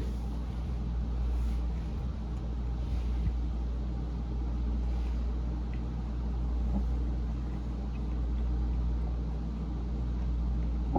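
Steady low rumble with a few faint small clicks over it.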